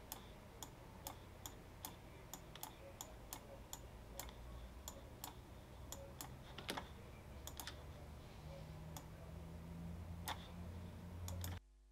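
Faint, sharp computer mouse clicks, two or three a second at an uneven pace, over a low steady hum; the sound cuts off suddenly just before the end.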